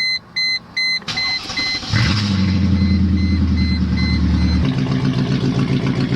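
The car's warning chime beeps rapidly, then the W210 E55 AMG's 5.4-litre V8 cranks and starts about two seconds in, dropping to a lower idle near the end. The idle pulses unevenly, with a misfire that the owner is sure of.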